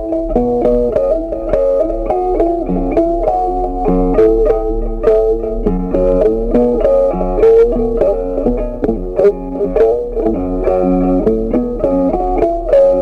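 Background music: a guitar playing a melody of short plucked notes at a steady pace.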